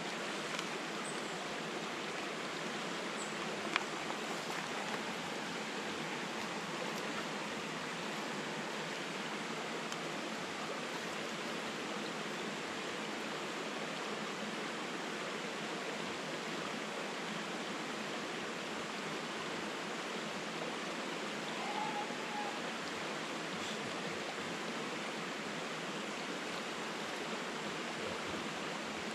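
A shallow river running over rocks and stones, a steady rush of water. There is one sharp click about four seconds in.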